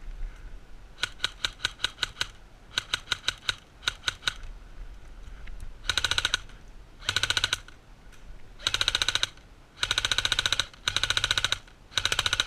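Airsoft electric rifles firing. Quick strings of single shots come first, then from about six seconds in come six short full-auto bursts, each a rapid mechanical rattle of about half a second.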